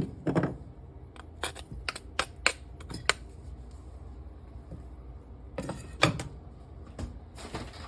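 Light clicks and clinks of a metal garlic press and kitchen utensils being handled: a quick run of sharp taps in the first three seconds, then a few more about six seconds in and near the end.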